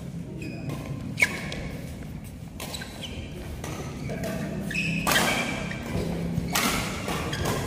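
Badminton rally: rackets striking the shuttlecock, with one sharp crack about a second in, plus the thuds of players' footwork.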